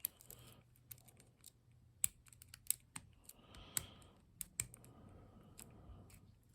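Irregular small metallic clicks and ticks of a lock pick working the pin stack in a Lockwood 234 padlock, with several louder clicks scattered through.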